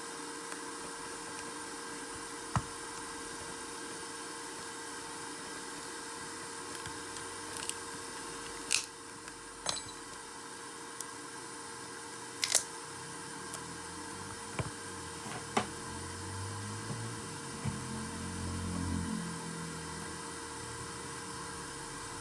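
Scattered sharp clicks and taps of small hand tools and parts during smartphone disassembly, about seven in all, over a steady hiss and hum. A low hum swells briefly near the end.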